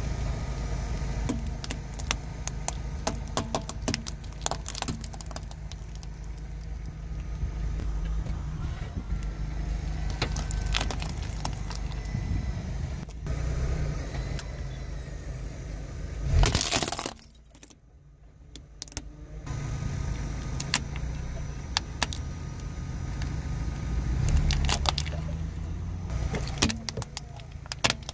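A car tyre rolling slowly over small plastic objects (a row of plastic clothes pegs, a toy candy dispenser, plastic toy guns), cracking and snapping them, with many sharp plastic snaps and clicks over the low rumble of the car. The loudest crack comes about sixteen seconds in, followed by a short quieter gap.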